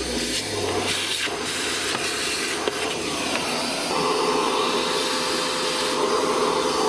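Cordless handheld vacuum cleaner running steadily, sucking dirt out of a car's centre console. About four seconds in its sound changes, with a steady hum coming in over the rush of air.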